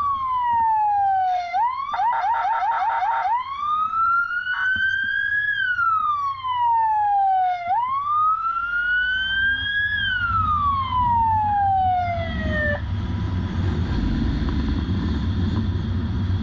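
Police motorcycle's electronic siren wailing in slow rising and falling sweeps, with a brief fast yelping burst about two seconds in. The siren cuts off suddenly about 13 seconds in, leaving the rumble of the motorcycle's engine and wind from riding at speed.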